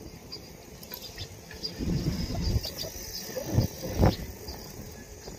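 Wind buffeting the microphone of a phone mounted on a moving bicycle: a low rumbling noise that swells twice, about two seconds in and again near four seconds, with a few faint clicks and rattles from the bike.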